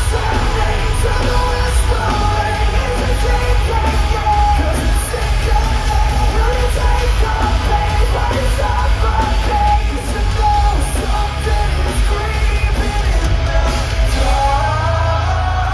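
Live metal band playing loud: a singer's voice, partly sung and partly yelled, over pounding drums and distorted guitars with a heavy bass end, heard from the audience in an arena.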